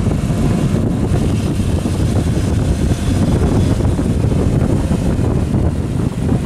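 Strong wind rumbling on the microphone over the engine of a four-wheel-drive towing a stuck hatchback out of soft sand on a rope.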